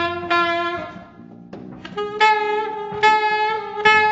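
A saxophone playing long held notes, dropping away for about a second before coming back on a new sustained note.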